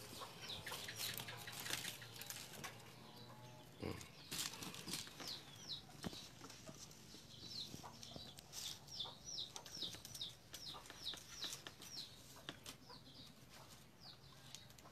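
Faint chicks peeping over and over in short, high, falling chirps, with occasional light clicks and rattles of thin bamboo strips being handled.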